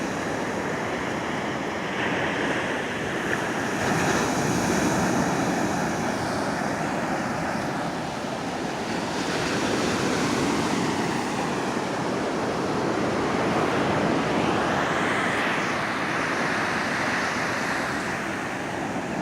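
Ocean surf washing in steadily, swelling and easing over several seconds, with some wind on the microphone.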